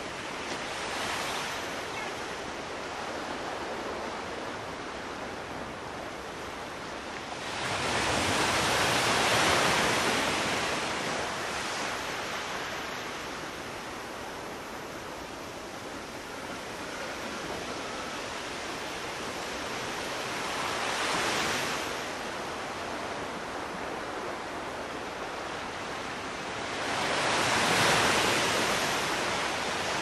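Ocean surf breaking and washing on a beach: a steady rush of water that swells and fades as each wave comes in, with two bigger breakers about eight seconds in and near the end, and smaller ones near the start and about twenty seconds in.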